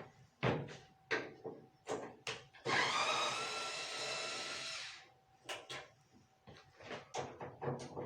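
Power drill-driver whirring steadily for about two seconds as it backs a screw out of a dryer panel, with short clicks and knocks of the tool and panel before and after.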